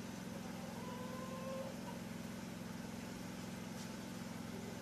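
Steady low hum of an engine or motor running in the background.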